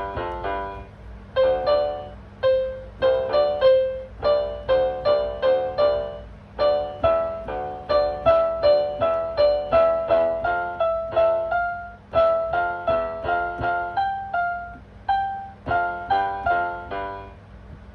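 Piano played by a beginner: an even run of struck notes over chords, about two to three a second, with a short pause near the start and stopping near the end.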